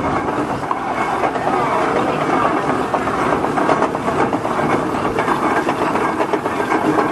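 Steam traction engine running as it drives slowly past: a busy, fast clatter of knocks from its moving parts over a steady hiss of steam.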